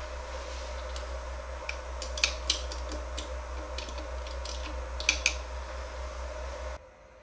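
Several sharp metallic clicks and taps in small clusters as a hex key works the mold claws of an APSX-PIM desktop injection molding machine. Beneath them is a steady machine hum that cuts off suddenly near the end.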